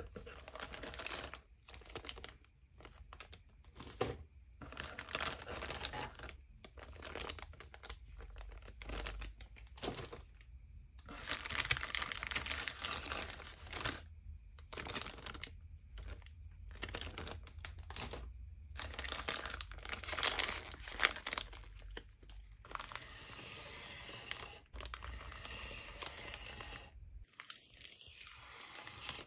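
Clear plastic bags around plastic model-kit sprues crinkling and rustling in irregular bursts as they are handled, and near the end a bag being slit open with a utility knife.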